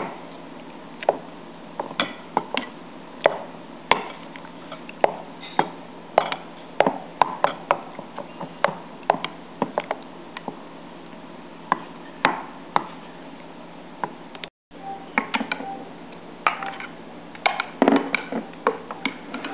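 Metal ladle clinking and scraping against a glass mixing bowl while stirring a thin flour batter, with irregular sharp clicks about one or two a second.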